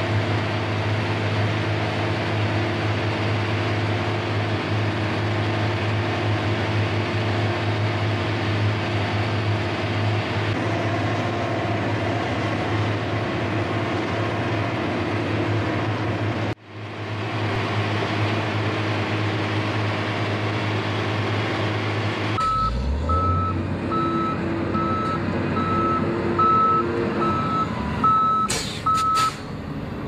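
Heavy paving machines' engines running steadily: first a laser screed levelling wet concrete, then, after an abrupt cut, a slipform concrete paver. In the last third a vehicle's reversing alarm beeps steadily about once a second over engine noise.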